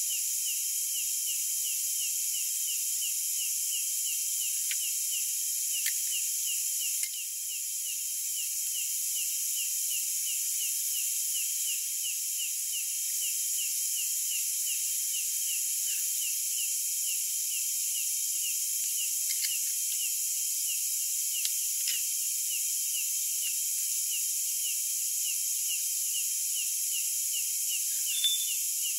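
Night insects: a cricket-like chirping of about three chirps a second over a steady high hiss of insect song. A few small clicks come from ceramic cups being handled on a wooden table, the clearest near the end.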